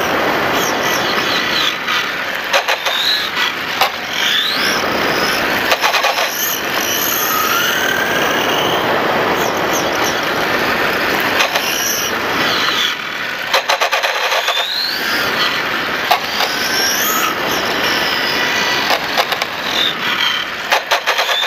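Onboard sound of a 1/5-scale radio-controlled motorcycle's motor, its whine rising in pitch again and again as the bike accelerates, under heavy wind rush on the onboard microphone. A few sharp knocks come through.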